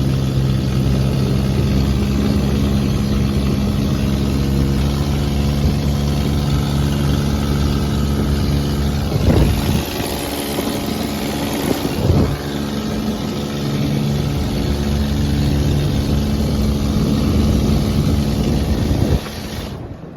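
Dune buggy engine running steadily while being driven, with two sharp knocks about halfway through. The engine sound drops away suddenly near the end.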